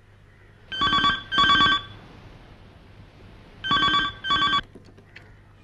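Telephone ringing: two double rings, about three seconds apart.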